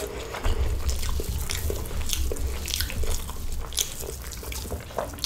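A person chewing a mouthful of white rice and potato fry eaten by hand, with many short wet clicks from the mouth.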